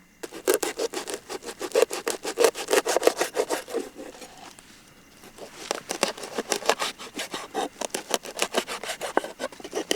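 Rapid rhythmic scraping strokes, several a second, with a brief pause about halfway through, as a large dried fish is scrubbed clean.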